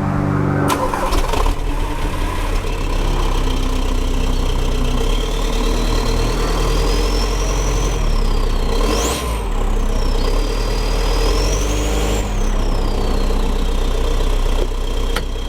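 Audi A3 8L 1.9 TDI turbo-diesel engine running with a catless downpipe, giving a steady diesel drone. A thin high whine rises and falls twice in the second half.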